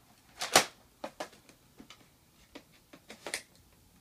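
Scattered clicks and knocks of plastic Nerf gear being handled and strapped on, the loudest a sharp knock about half a second in, with a few lighter clicks after.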